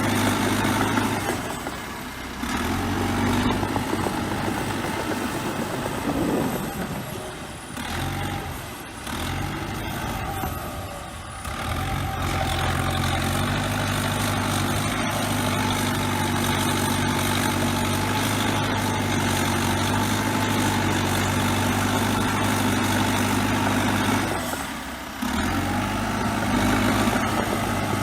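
Bulldozer diesel engine running steadily while working. Its note drops back and picks up again a few times.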